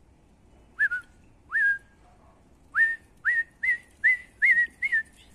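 A person whistling about eight short notes, each sliding quickly up and then holding. The first two are spaced apart and the rest come in a quicker run.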